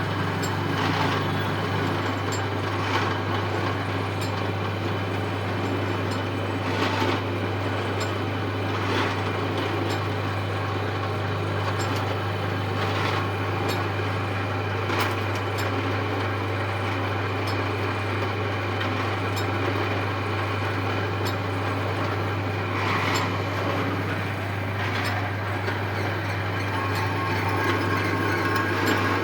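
Metal lathe running steadily, its motor giving a constant low hum, with faint light ticks every couple of seconds.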